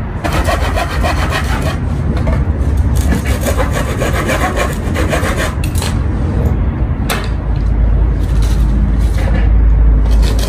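Hand saw cutting through a wooden plank for firewood in quick back-and-forth strokes, with a couple of brief pauses. A low rumble runs underneath and gets louder near the end.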